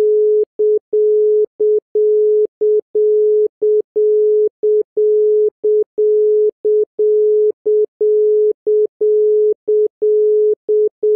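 Mexican telephone intervention tone, a single steady 425 Hz tone keyed in a repeating long-short pattern: a half-second beep, then a short beep, about once a second. It signals that an operator is breaking into the call.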